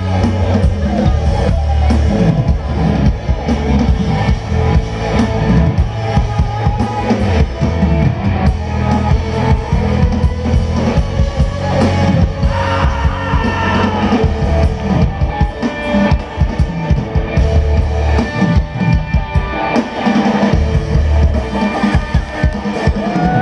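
Live rock band playing, with drum kit, bass and guitar.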